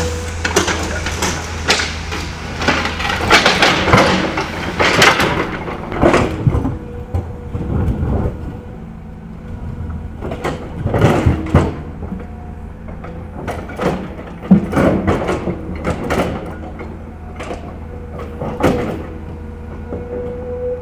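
L&T PC200 hydraulic excavator's diesel engine running steadily while its bucket scrapes and knocks against rock in irregular, loud strikes, thickest in the first few seconds.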